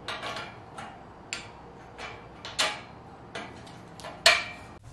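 Ratchet wrench clicking in about eight irregular strokes, roughly one every half second, tightening bolts on a steel firewood rack; the last stroke, near the end, is the loudest.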